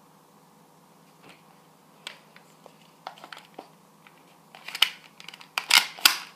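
Hard plastic clicks and rattles from handling a Nerf Sharpfire blaster while the long barrel extension is fitted. A few scattered clicks, then a quicker run of louder clicks and rustles near the end.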